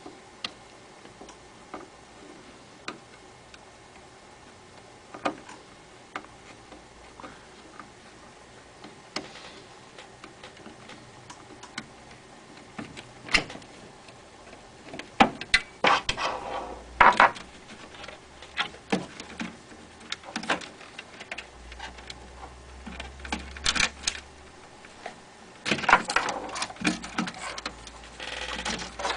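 Screwdriver and fingers working on the metal chassis and plastic wire connectors inside a DLP rear-projection TV: scattered clicks and taps, with busier clattering and rustling about halfway through and again near the end.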